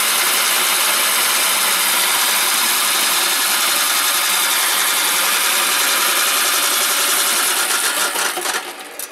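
Homemade remote-controlled McLane reel mower running: CIM electric motors driving the cutting reel through an AndyMark gearbox as it cuts grass, a loud, steady whirr that drops away about eight and a half seconds in.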